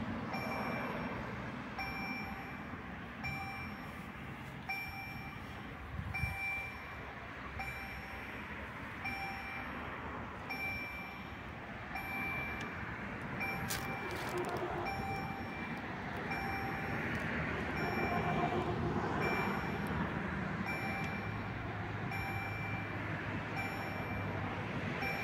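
EHL-S10 electronic level-crossing bell dinging in a steady repeating pattern, about three strikes every two seconds, warning that the crossing is closed for an approaching train.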